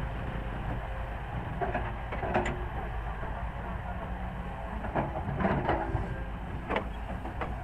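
Heavy diesel machinery running with a steady low rumble, with occasional short knocks and clanks scattered through it.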